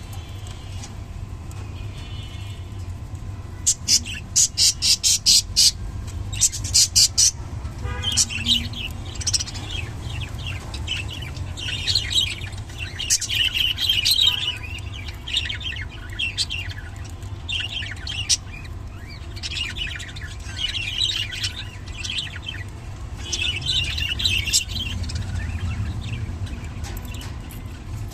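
Budgerigar chirping and chattering in short high bursts, with two quick runs of loud sharp clicks near the start, over a steady low hum.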